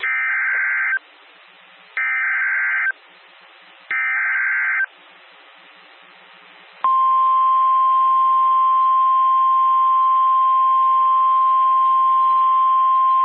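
Emergency Alert System SAME header: three bursts of rapid warbling digital data tones, each about a second long and about a second apart, with faint radio hiss between them. About seven seconds in, the weather radio's loud, steady, single-pitch warning alarm tone starts, signalling that a warning is about to be read.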